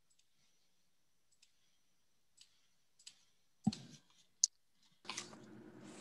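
Near silence over a video-call line, broken by a few faint clicks, then a louder knock and a sharp click a little before the end. About a second before the end an unmuted microphone comes on with a steady low hum and room noise.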